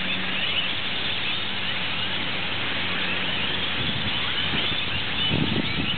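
A huge flock of purple martins chirping continuously, many overlapping calls at once as they come in to roost, over a low steady hum. Wind starts rumbling on the microphone about five seconds in.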